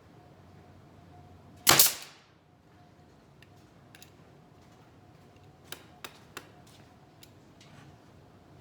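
A single loud, sharp bang with a short fading tail about two seconds in, followed a few seconds later by three light clicks, as a small wooden picnic-table frame is being assembled.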